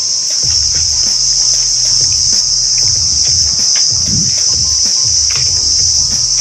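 Loud, steady, high-pitched insect chorus droning without a break, with irregular low thuds underneath.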